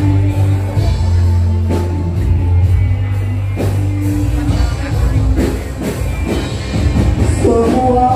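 Loud amplified music with a strong bass line and regular drum hits.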